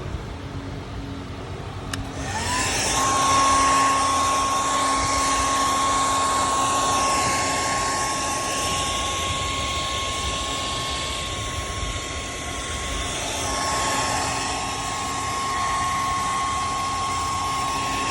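An electric motor spins up with a quick rising whine, then runs steadily with a high whine over a rushing hiss, and cuts off suddenly near the end.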